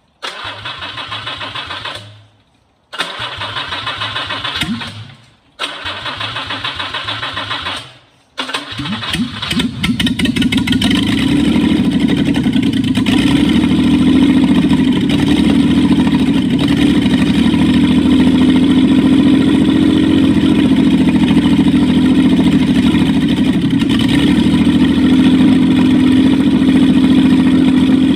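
A Jaguar 4.2-litre XK straight-six on a test stand is being cranked by its starter motor. It cranks three times, about two seconds each, before it catches on the fourth try about 8.5 seconds in, and then it runs steadily. It is not firing on all six cylinders, which the owner puts down to a suspected air leak at the rear carburettor.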